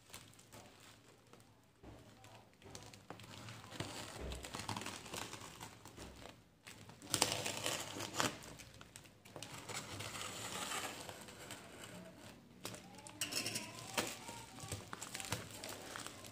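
Black plastic parcel wrapping crinkling and rustling as it is handled and opened by hand, in irregular bursts that start a couple of seconds in.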